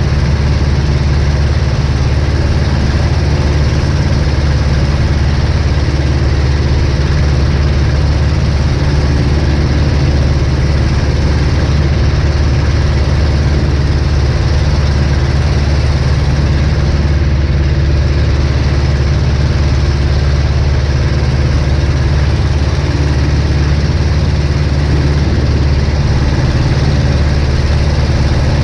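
1947 Aeronca Champ's piston engine and propeller running steadily in flight, a continuous, unchanging drone.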